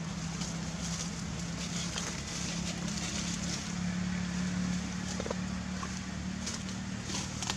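Steady low hum of a running engine, with a few faint ticks over it.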